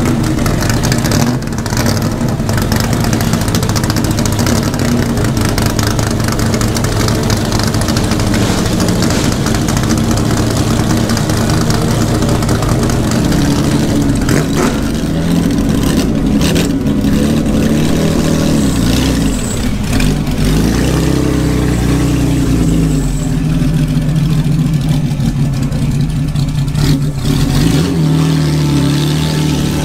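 Historic GT racing car engines idling and running at low speed, with occasional revs and shifts in engine pitch as cars move through.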